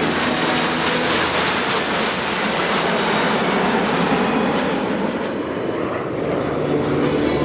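Snowbirds CT-114 Tutor jets, each with a single J85 turbojet, flying past the crowd: a loud, steady jet noise that dips slightly about five seconds in, then swells again.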